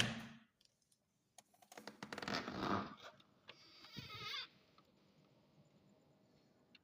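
A window or door being opened: a sharp latch click, then a rasping scrape and a wavering squeak of the frame and hinges as it swings.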